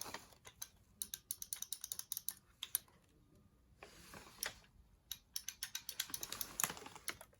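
Rapid small clicks and taps in two bursts, with a brief rustle between them: an old elevator call button being handled and fiddled with.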